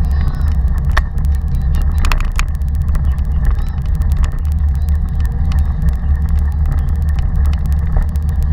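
Wind buffeting the microphone of a camera mounted on a moving Taga cargo bike: a steady heavy rumble, with frequent small clicks and rattles as the bike rolls along.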